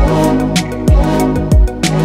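Background music with a beat: a deep kick drum that drops in pitch hits roughly once a second under sustained chords and crisp percussion strikes.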